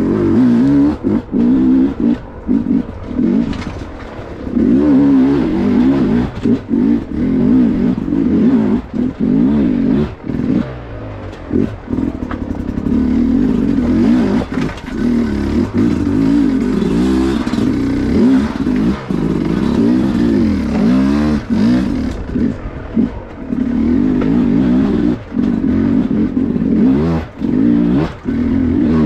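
Dirt bike engine revving up and down in short bursts at low speed over rocky ground, with frequent throttle chops as the rider picks through rocks.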